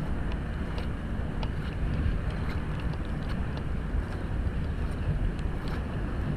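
Low rumble of wind buffeting the microphone as it moves close over wet cobblestones, with a hiss of wet ground and scattered light ticks.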